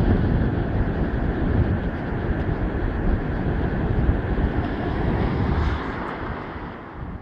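Wind rushing over the camera microphone during a bicycle ride, a loud, even rushing with low rumble, dying away over the last second.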